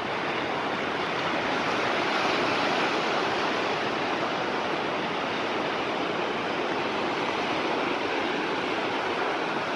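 Ocean surf breaking and washing up over the shallows in a steady rush.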